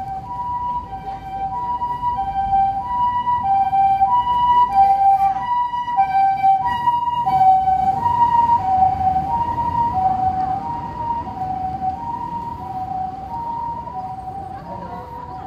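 Japanese ambulance's two-tone hi-lo siren, alternating between a higher and a lower note about every half second. It grows louder, peaks midway and then fades as the vehicle passes, over low street noise.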